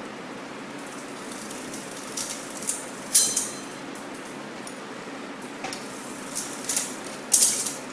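Chain and derailleurs of a 1974 Schwinn Sprint ten-speed clinking and clattering as the chain is shifted across the sprockets while the cranks turn, a run of sharp metallic shifts with the loudest about three seconds in and near the end. The bike goes through all the gears: the rebuilt drivetrain shifts properly.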